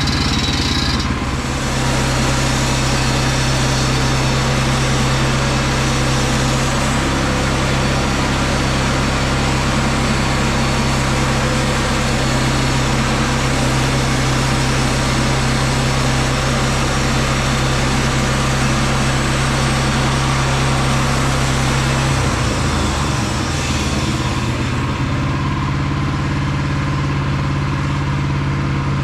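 Woodland Mills HM122 bandsaw mill sawing a log: the engine runs steadily under load while the band blade cuts with a continuous hiss. About 22 seconds in the engine note drops and the cutting hiss fades. The owner says he pushed it too hard and the blade is a little dull.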